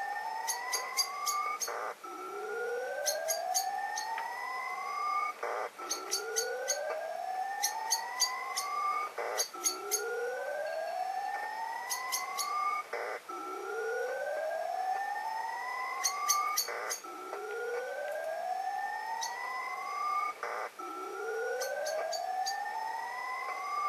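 Shortwave receiver on the 20 m amateur band reproducing an unidentified signal that sounds digital: a rising tone sweeps up over about three seconds, with a second sweep higher up, then breaks off in a short burst of noise and starts again, about every four seconds. A steady low tone runs beneath it, and small birds chirp high above.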